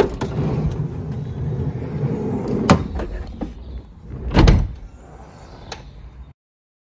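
Sliding side door of a VW California campervan rolled along its track with a steady low rumble, a sharp clack partway through, then slammed shut with a heavy thud about four and a half seconds in; the sound cuts off suddenly near the end.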